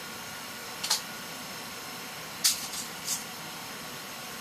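Steady hiss of a running heater, with three short sharp clicks about a second, two and a half and three seconds in.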